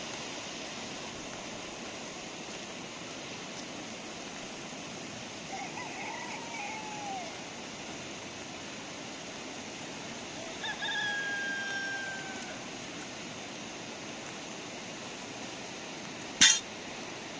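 A rooster crowing twice over a steady background hiss: a shorter arching crow about six seconds in, and a longer held crow that trails off slightly lower about eleven seconds in. A single sharp click near the end is the loudest sound.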